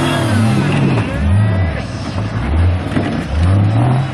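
Off-road competition buggy engines revving hard and easing off again and again, the pitch rising and falling four or five times as the buggies climb a dirt track.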